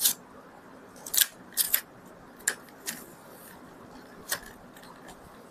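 Plastic packaging of a RAM module being pried open: a handful of short, sharp crackles and clicks spread over about four seconds, then quiet handling.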